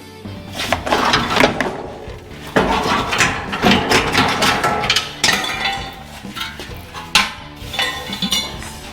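Loud, irregular metal clanking and banging, many strikes with ringing in between, from steel parts being struck and handled.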